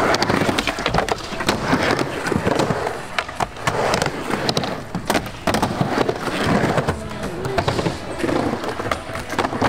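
Skateboard wheels rolling and carving across skatepark ramps, with frequent sharp clacks and knocks from the board and trucks. Music plays underneath.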